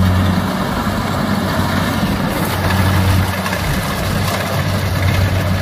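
Kubota DC70 combine harvester's diesel engine running steadily under load as it harvests rice, a loud, even, low hum that pulses slightly in level.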